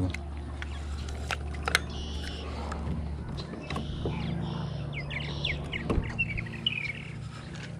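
Birds chirping in short repeated calls over a steady low hum, with a couple of sharp knocks, the loudest about six seconds in.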